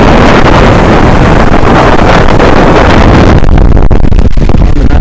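Creek water rushing over the rock lip at the top of a waterfall, mixed with heavy wind buffeting on the microphone; the overall sound is very loud and rumbling, and its upper hiss thins about three seconds in.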